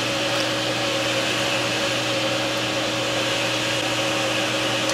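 A small electric motor running steadily: an even rushing whir of moving air with a low hum underneath.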